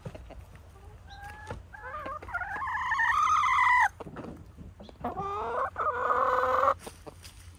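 Chicken hens calling: two long, loud, drawn-out calls. The first builds up over about two seconds and stops sharply, and the second follows about a second later.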